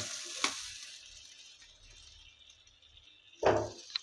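Oil in a flat frying pan sizzling as fried fish is lifted out with a spatula, the sizzle dying away over the first second, with a light click about half a second in. A short knock comes about three and a half seconds in.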